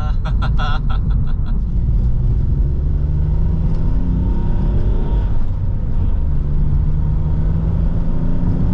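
Hyundai Tiburon's 2.7-litre V6 accelerating, heard from inside the cabin. The engine note climbs, drops at a gear change about five or six seconds in, then climbs again, running smoothly past 3000 rpm now that the misfire is cured.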